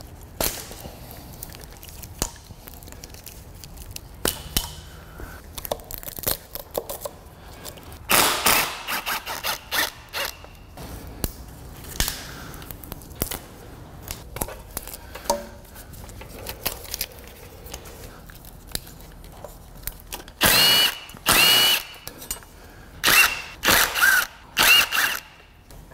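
Plastic clicks and rustling as the engine's wiring-harness connectors are unplugged and the harness is lifted away. Near the end, about six short bursts of a cordless ratchet, each with a motor whine that rises and falls, as the valve cover bolts are run out.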